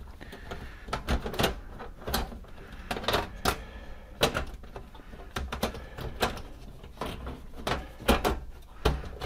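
Metal side panel of a Dell desktop tower being worked back onto the chassis: irregular clicks and clacks as its edge tabs are fitted into the case's slots.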